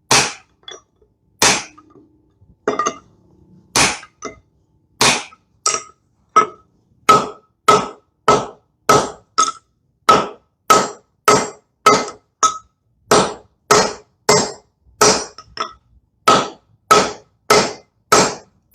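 Blacksmith's hammer striking a hot railroad-spike axe head on an anvil: a few scattered blows, then from about five seconds in a steady run of about one and a half blows a second, each with a short metallic ring.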